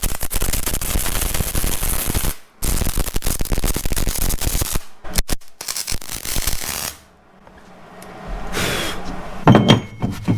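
Arc welding on steel plate: the arc crackles steadily in three runs of about two seconds each, with short pauses between, as weld beads are laid. A few metal knocks follow near the end.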